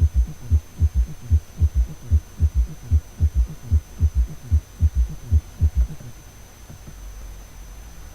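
Heart sounds heard through a stethoscope bell at the cardiac apex: S1 and S2 followed in each beat by an extra low-pitched third sound, S3, giving a galloping rhythm of short low thumps. The beats stop about six seconds in, leaving a low hum.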